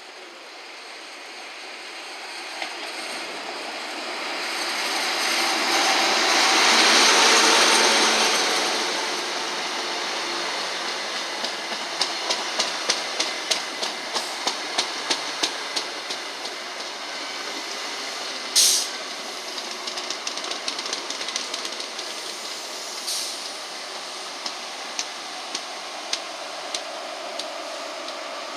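A train passing on the line, its running noise swelling to a peak and easing off, then a long run of regular clickety-clack as wheelsets cross the rail joints. A short, sharp burst of hiss cuts in about two-thirds of the way through.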